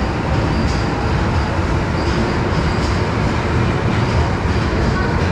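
Train running in the station: a loud, steady low rumble.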